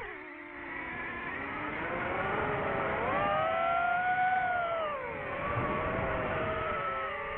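DJI FPV drone's motors whining, the pitch sliding up and then back down as the throttle changes.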